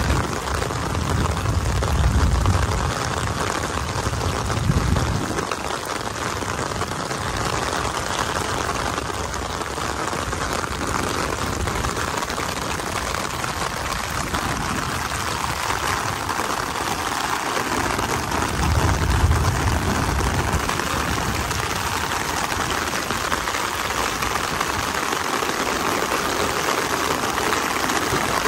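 Heavy rain falling steadily onto wet ground and flooded road, a continuous hiss of rain. Low rumbles come through near the start and again about two-thirds of the way through.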